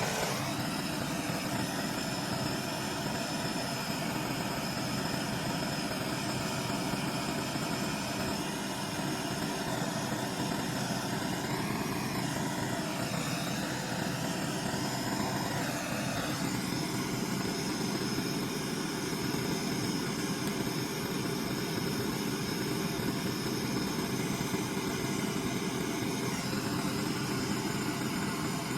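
Steady mechanical drone, like a running motor or engine, with a faint high whine held throughout. There is a slight change in tone about two-thirds of the way through.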